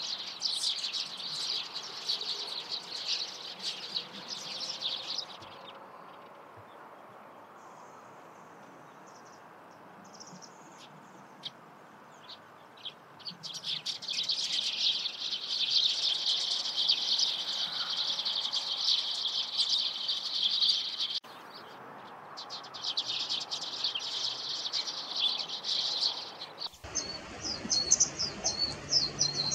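Small wild birds chirping in dense runs of high, rapid calls. A quieter stretch with only a few scattered high notes comes between them, and the recording cuts abruptly twice in the second half.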